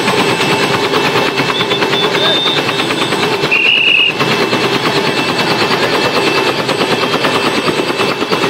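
Helicopter running close by: a fast, steady chopping of the rotor blades over a constant hum, with two brief high-pitched tones about two and three and a half seconds in.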